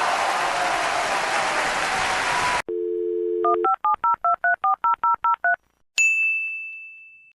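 A steady rushing noise cuts off suddenly, then a landline telephone dial tone sounds for about a second, followed by about a dozen quick touch-tone keypad beeps as a number is dialed. Near the end a single bright ding rings out and fades.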